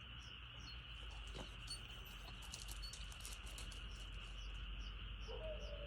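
Countryside chorus of frogs and crickets: a steady high-pitched trill with a chirp repeating about three times a second. A patch of quick clicking comes about two seconds in, and a short lower call comes near the end.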